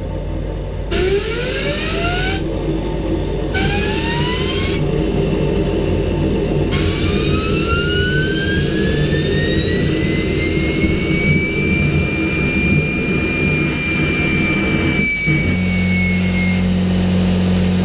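Homemade turbojet engine with a centrifugal compressor being spun up by bursts of hissing air at the intake while gas burns inside. There are three short rising turbine whines in the first five seconds, then a longer whine that climbs for about five seconds, holds high, and sinks slightly until the hiss cuts off about a second before the end. A steady low hum starts near the end.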